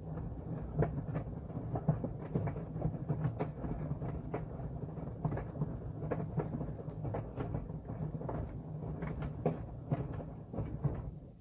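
Washing machine drum turning in the wash cycle: a steady motor hum with irregular knocks from the tumbling load, stopping near the end as the drum pauses.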